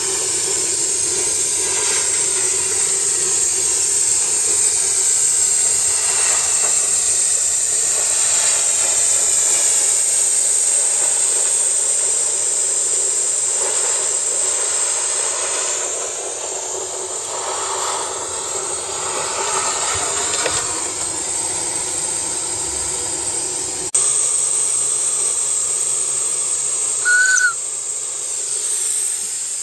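Aster gauge 1 live-steam DB class 01 model locomotive standing in steam, with a steady loud hiss of escaping steam. A click comes about two-thirds of the way through, and a brief high squeak near the end.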